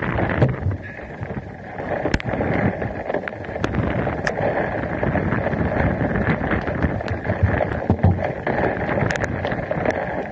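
Gusty storm wind buffeting the camera's microphone, a heavy rumbling rush that swells and dips, with scattered sharp ticks throughout.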